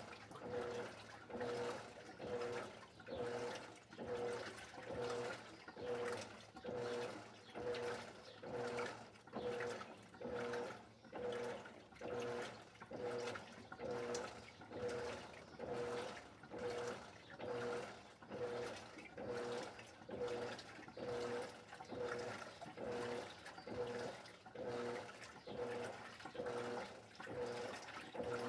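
Electrolux LED14 top-loading washing machine agitating: a rhythmic swishing of water and clothes, about one stroke a second, each stroke carrying a short hum-like tone.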